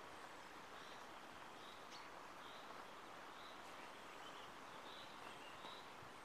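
Faint woodland ambience: a soft steady hiss with a bird's short, high chirps repeating about once a second.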